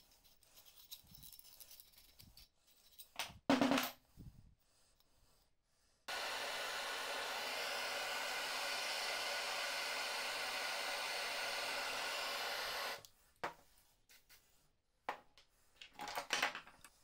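Gas blowtorch flame hissing steadily for about seven seconds, heating a rusted steel joint of an old breast drill; it starts and stops abruptly. A couple of short sharp knocks come about three and a half seconds in.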